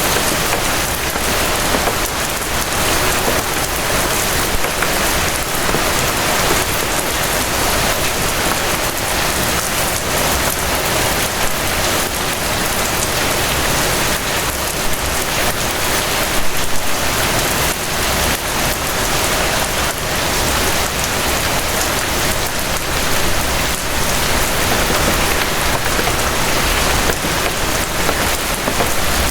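Steady rain falling on a surface, a dense even patter of many drops with no pauses.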